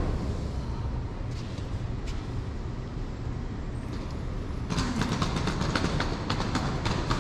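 Train running past with a steady low rumble; about five seconds in, a rapid irregular clatter of clicks joins it.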